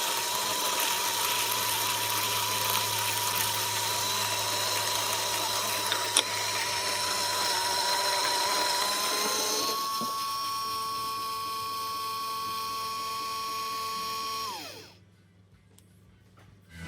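MiiCoffee C38 single-dose coffee grinder running with a steady motor whine over a grinding noise. About ten seconds in, the whine steps up in pitch and the grinding noise drops away. Then the motor winds down and stops.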